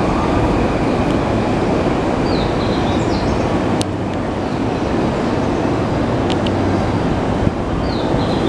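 Steady low rumble of railway noise in a busy station, with a few sharp clicks and faint high chirps over it.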